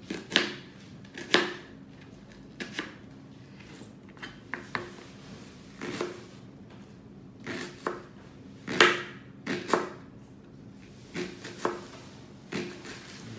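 Kitchen knife cutting a red onion on a plastic cutting board: an uneven series of sharp knocks, often in pairs, as the blade slices through and strikes the board, with the loudest about nine seconds in. The onion is being cut up fine.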